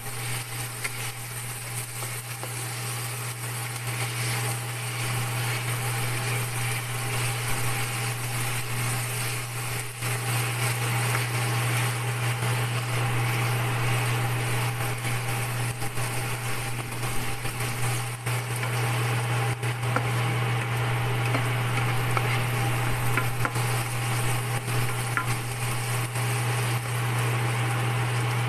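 Chopped chorizo sizzling and crackling in olive oil in a nonstick frying pan, stirred now and then with a spatula. The sizzle gets louder a few seconds in, over a steady low hum.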